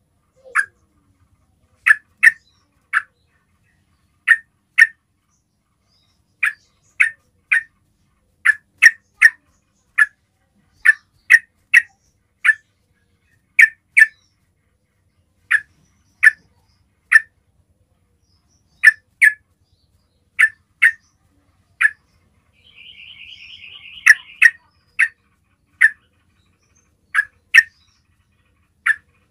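Yellow-vented bulbul giving short, sharp call notes, singly or in quick pairs and threes about every second. This is the basic calling sound used to draw other bulbuls to answer. A brief, quieter wavering trill comes in about 23 seconds in.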